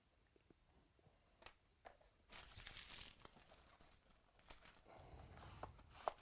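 Plastic wrapping on trading-card packaging being crinkled and torn open, in a few faint rustling stretches with a couple of light clicks.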